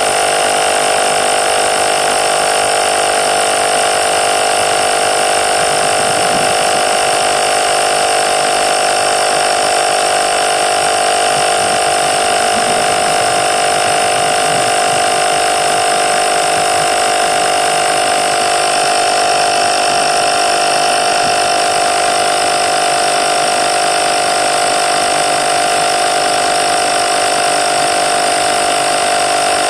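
Cordless 20-volt portable tire inflator's small compressor running steadily with a constant mechanical whine, pumping bus tires near 105 PSI.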